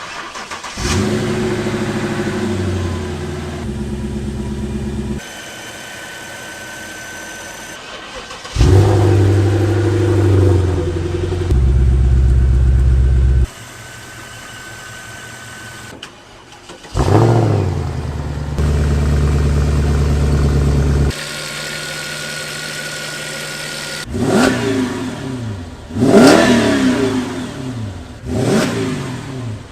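Mercedes CL 500 and CL 63 AMG V8 engines cold-starting one after another, each catching with a brief flare and settling into a steady fast idle, with abrupt cuts between them. Near the end an engine is revved sharply three times, each rev rising and falling quickly.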